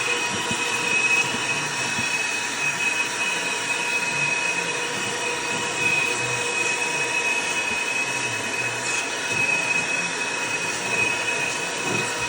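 Shop vacuum running steadily, a loud rushing of air with a high motor whine, as it cleans out a furnace.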